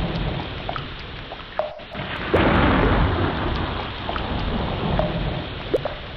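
Heavy rain falling steadily, with low rumbling thunder and scattered drip plinks. A louder peal of thunder breaks in suddenly about two seconds in, then slowly fades back into the rumble.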